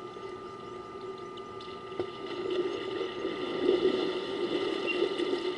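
African elephant wading and splashing in a waterhole: water sloshing and crackling, growing louder from about two seconds in.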